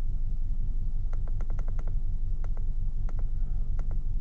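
2014 Kia Forte's 2.0 L GDI four-cylinder idling with a hard misfire on cylinder one, a steady low rumble with a pulsing beat. Scattered light clicks sound over it.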